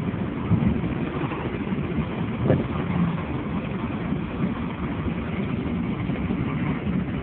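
Steady low rumble of a car's engine and road noise heard from inside the cabin, with a brief knock about two and a half seconds in.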